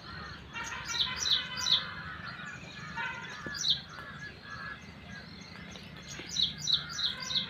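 Birds chirping: short, sharp notes that drop in pitch, coming in quick runs of about three, over a continuous lower chatter.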